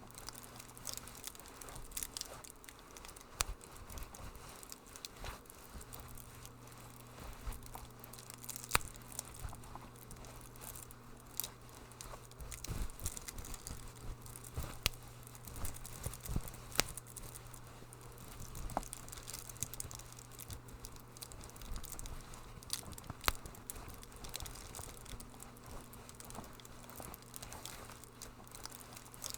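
Wood fire crackling in a fireplace: irregular sharp snaps and pops, a few louder than the rest, over a soft hiss, with a faint low steady hum underneath.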